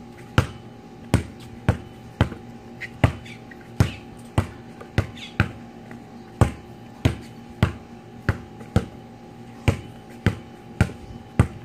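Basketball being dribbled, one bounce every half second or so in a steady, regular rhythm.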